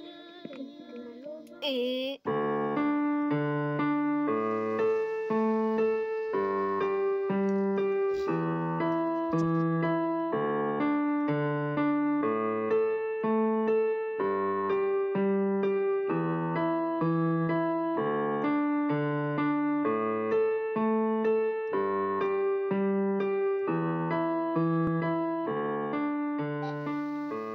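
Piano music: a keyboard playing a gentle, repeating pattern of sustained notes at a steady tempo, coming in about two seconds in.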